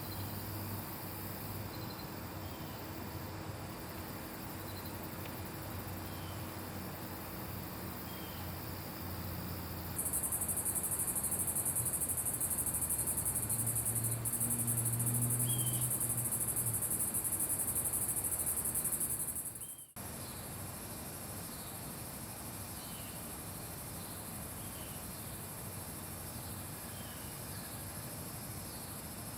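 Steady high-pitched chorus of insects, crickets or cicadas, that gets markedly louder about a third of the way in and drops back after a sudden break about two-thirds through.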